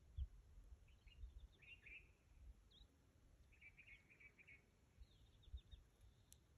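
Faint chirping of small birds: short high notes and quick chattering runs, loudest about two and about four seconds in, over a low rumble.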